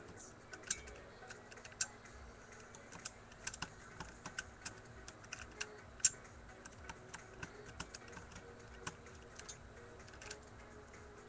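Irregular light clicks and ticks of a screwdriver and small parts being handled while undoing the screw that holds an airsoft rifle's pistol grip. The sharpest click comes about six seconds in.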